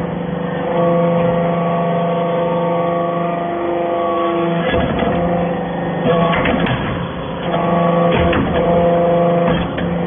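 Hydraulic briquetting press compacting aluminium chips: the machine hums steadily in several tones, with metallic knocks and clatter from the ram working about five seconds in, again around six to seven seconds, and near the end.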